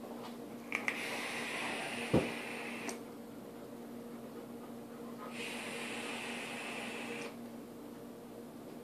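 Hard hits on an Omega rebuildable dripping atomizer with a 0.2-ohm coil build: two stretches of rushing, hissing air of about two seconds each. The first starts about a second in and the second begins past the five-second mark, with a short thump partway through the first. A steady low hum runs underneath.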